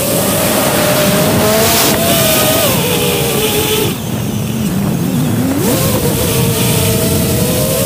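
5-inch FPV quadcopter's brushless motors and propellers whining over a rush of wind noise. The pitch dips and fades about four seconds in, then climbs steeply back up near six seconds as the motors spin up again.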